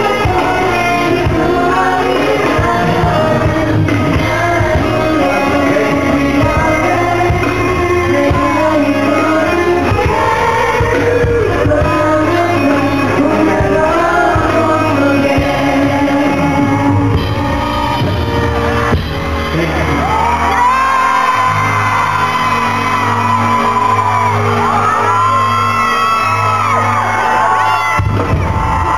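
Live pop concert: loud amplified music with a singing voice, in a large hall.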